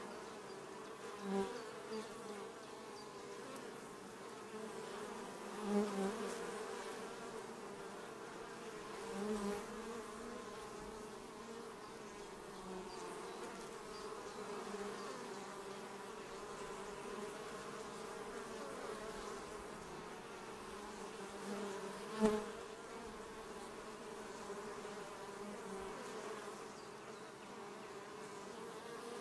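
Western honey bees buzzing around the hive: a steady hum of wingbeats with several brief louder swells, the sharpest about three-quarters of the way through.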